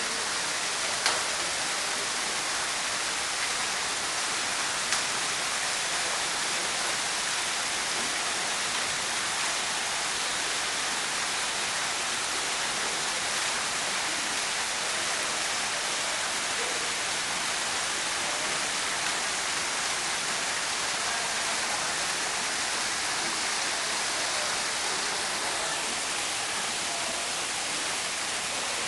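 Water falling steadily from a portable artificial waterfall, a constant even rush like heavy rain. Two faint ticks come about a second in and again around five seconds.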